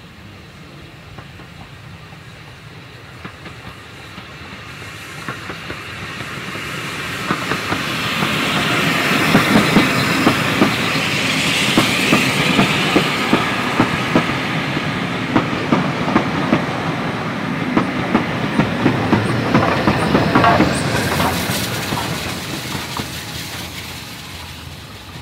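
A steam-hauled train of Pullman coaches passing close by, headed by an LBSCR Terrier tank engine coming down the bank. It builds up, its wheels click steadily over the rail joints at its loudest, and it fades as it goes away. A brief hiss comes near the end as the tender engine at the rear goes by.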